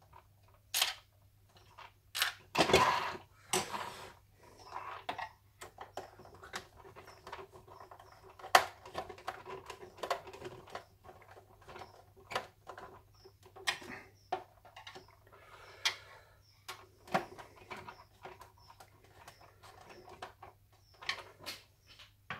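Screws being driven by hand with a screwdriver into the plastic body of a Bigtrak toy, with irregular small clicks and scrapes of the screwdriver and plastic parts being handled.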